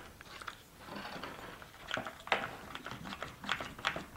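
One-handed trigger bar clamp being tightened onto a wooden jig, its ratcheting trigger and bar clicking in a string of irregular sharp ticks, the loudest just over two seconds in.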